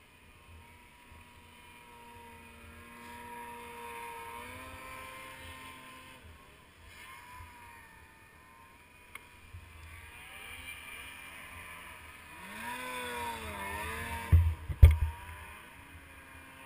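Snowmobile engines running, the revs rising and falling several times as the sleds turn in deep snow. A couple of loud low thumps near the end.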